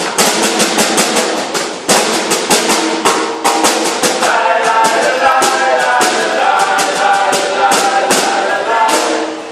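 Acoustic folk band playing live: strummed and struck instruments over a steady, even percussive beat. The music drops in level right at the end.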